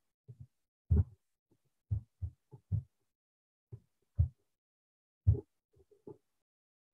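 Soft, low thumps and knocks, about a dozen at irregular intervals, with dead silence between them.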